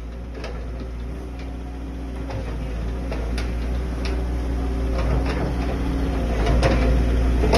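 A 14-ton hydraulic crawler excavator's diesel engine running with a steady low hum, growing steadily louder, with scattered sharp knocks and clanks.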